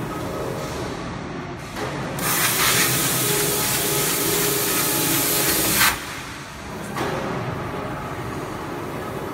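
Gantry-type CNC V-grooving machine running, with a loud hiss of air from about two seconds in that cuts off suddenly about six seconds in.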